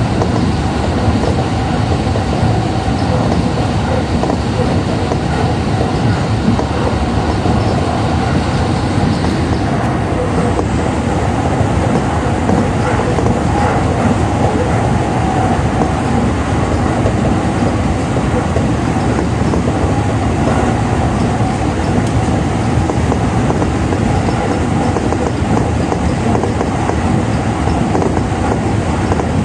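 Tsukuba Express TX-2000 series electric train running at speed, heard from inside the front car: a steady rumble of wheels on rail. A faint high steady tone stops about ten seconds in.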